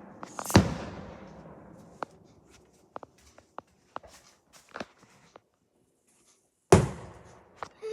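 Fireworks going off outside and heard from indoors: a loud bang about half a second in and another near the end, each with a long echoing tail, with a scatter of smaller sharp pops between.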